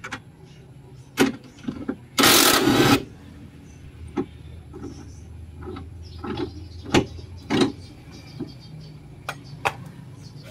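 Cordless impact wrench firing one short burst, under a second long, about two seconds in. Scattered short metallic clinks and knocks of tools and sockets being handled.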